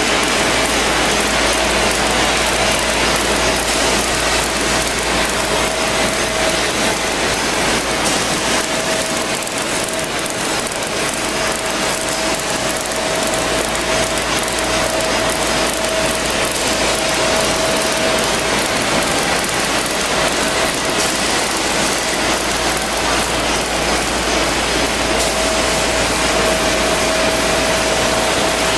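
Automatic packaging machinery running: a steady mechanical running noise with a thin, steady whine that fades in and out.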